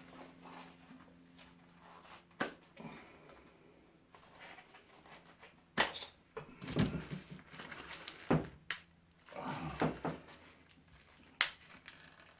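Parts of a scrap teardown being handled and forced apart by hand: a handful of sharp clicks and knocks, with two stretches of scraping and rubbing between them.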